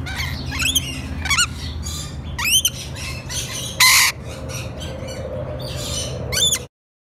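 Rainbow lorikeets chattering in a string of short, quick-gliding squawks and chirps, with one loud harsh screech about four seconds in. The sound cuts off abruptly near the end.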